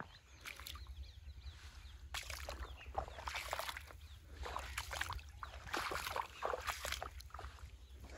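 Irrigation water running along an earthen furrow channel, with irregular gurgling and splashing that comes and goes, busiest through the middle. A steady low rumble lies underneath.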